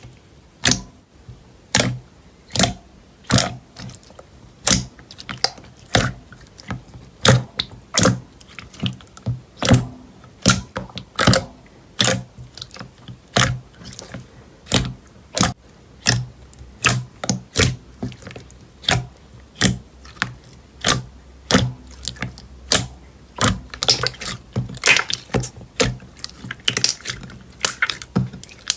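Slime being pressed and poked, giving sharp clicking pops at uneven spacing, about one or two a second, with a denser crackle near the end.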